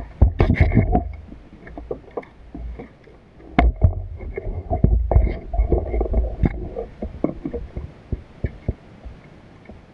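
Water sloshing and splashing, with scattered clicks and knocks and muffled low rumbling in two stretches, near the start and mid-way through.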